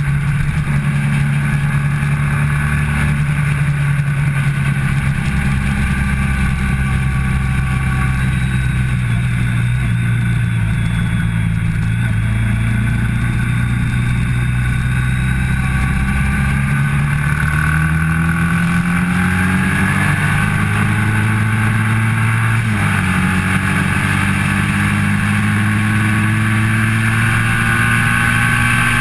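Sport motorcycle engine at track speed heard from an onboard camera over wind noise, holding fairly steady revs through a long corner, then climbing in pitch as it accelerates out. About three-quarters of the way through the revs drop sharply at an upshift and climb again.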